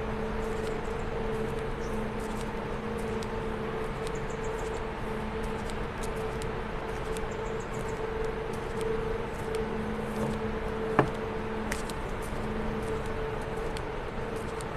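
Steady industrial hum of power plant machinery: a low drone of two unchanging tones over a constant rushing noise, with one sharp click about eleven seconds in.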